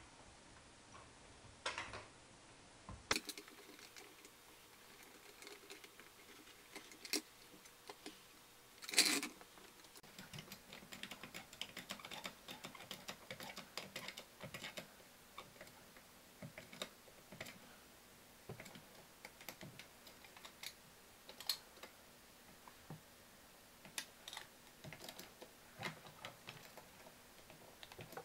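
Hydraulic trolley floor jack being worked, its mechanism giving off irregular light clicks and ticks while its saddle presses up into a sneaker, with one louder clatter about nine seconds in.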